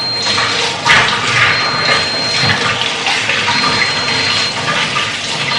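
Water running from a kitchen tap into the sink, a steady rush with uneven splashing.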